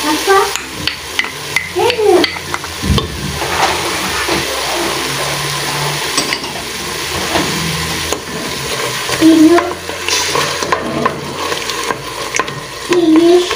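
Peruvian aderezo of garlic, cumin and ají amarillo and ají panca pastes sizzling in hot oil over low heat while it is stirred. A steady frying hiss runs throughout, with frequent scrapes and knocks of the utensil against the pot.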